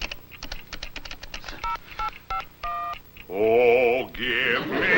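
Keypad buttons clicking quickly, then four short two-tone touch-tone beeps as a number code is keyed into a robot's chest keypad. A loud warbling sound follows near the end.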